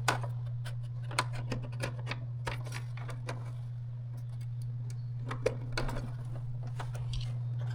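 Scattered light clicks and taps of parts being handled and fitted during reassembly of a spectrum analyzer, over a steady low hum.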